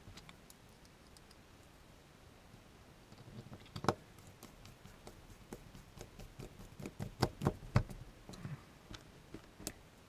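Small metal clicks and taps as a tailpiece is fitted and screwed onto the back of a brass mortise lock cylinder with a small screwdriver. The clicks are scattered and irregular: a sharp one about four seconds in, a quick cluster a few seconds later, and one more near the end.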